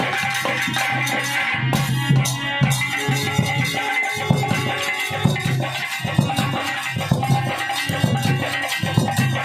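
Live folk dance music led by a rope-laced barrel hand drum (dholak) beating a quick, steady rhythm, with a held high note sounding over it.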